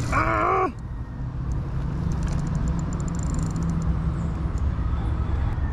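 A brief wavering wordless shout in the first half-second or so, then the steady low rumble of road traffic.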